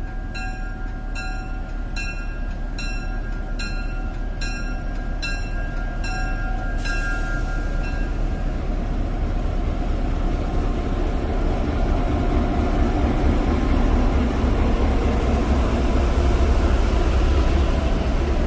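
A railroad crossing bell dings about once every 0.7 seconds and stops six or seven seconds in. Under it, a diesel locomotive's low rumble and rail noise grow steadily louder as the train comes closer.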